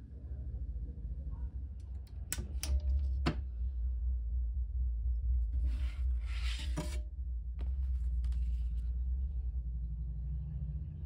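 A few sharp clicks and knocks, then a rubbing, rustling scrape, twice, as a clear acrylic card stand holding a paper map is handled. A low steady rumble lies under it.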